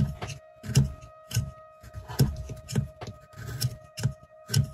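A sharp carving knife taking short, quick cuts in hard, tight-grained red cedar driftwood, each cut a crisp scrape, about two a second. A faint steady hum sits behind them.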